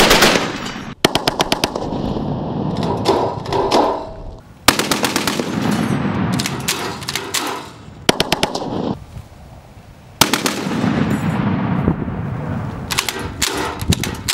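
Browning M2 .50-calibre heavy machine gun firing ball ammunition in about four bursts of automatic fire, each lasting one to three seconds, with the reports echoing after each burst.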